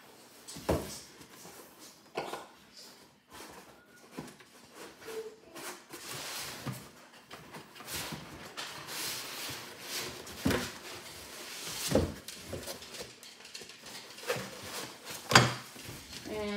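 Cardboard box and foam packing inserts being handled: scattered knocks and bumps with rustling and scraping of cardboard between them, the loudest knock near the end.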